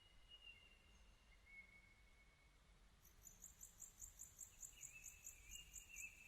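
Near silence of faint outdoor ambience: a thin steady high tone and, from about halfway in, rapid high-pitched chirping at about four pulses a second.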